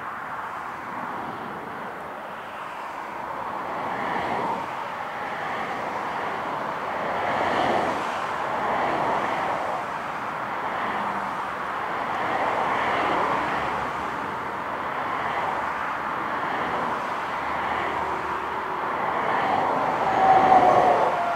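Airbus A380's four turbofan engines at low taxi thrust, heard from a distance as a steady rushing whine that swells and eases. Near the end a brief louder swell carries a tone that falls slightly.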